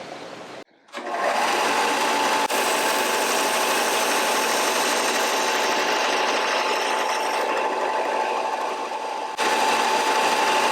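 Power sander running steadily against a wooden knife handle, rounding and sanding it down, with a constant high whine. It starts about a second in.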